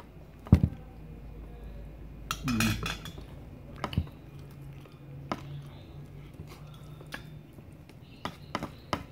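A plastic fork clinking and scraping against a metal plate while eating, heard as a handful of separate clicks a second or more apart, with a louder knock about half a second in.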